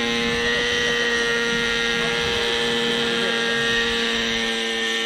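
Hirobo Shuttle radio-controlled helicopter in flight, its small two-stroke glow engine and rotor running at a steady pitch. The carburettor needle mixture can't be set right, so the engine won't rev out cleanly and runs sluggishly in flight.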